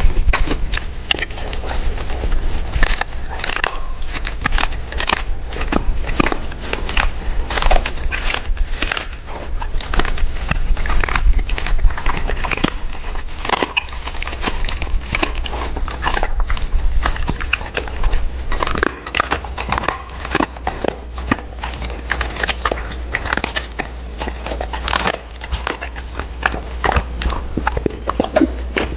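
A Doberman crunching and chewing crunchy food, a rapid, irregular run of sharp crunches and bites.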